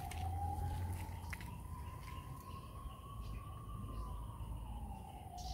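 A distant siren wailing, one tone slowly rising and falling, over a low rumble. A few light clicks come from a cast net being handled.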